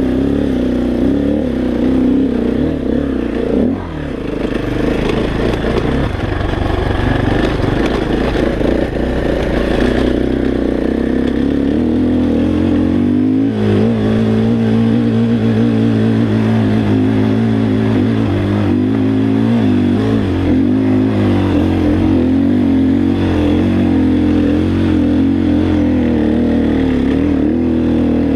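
KTM 350 XCF-W dirt bike's single-cylinder four-stroke engine, breathing through a full Akrapovic exhaust, running under load on a hill climb, with the throttle eased briefly about four seconds in and the engine note changing and settling near the middle.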